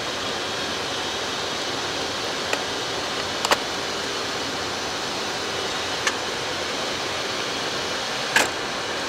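Steady rushing cabin noise of a Boeing 737 MAX flight deck on final approach, airflow and air conditioning, with a few short clicks, the loudest near the end.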